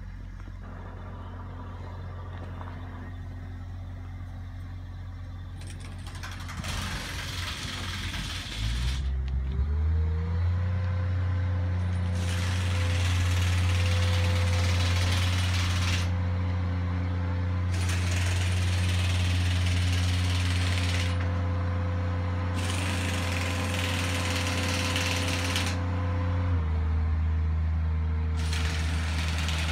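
Caterpillar D8T crawler dozer's C15 diesel engine running: its speed rises about nine seconds in, holds high, then eases back a little near the end. A hiss comes and goes over it in stretches of a few seconds.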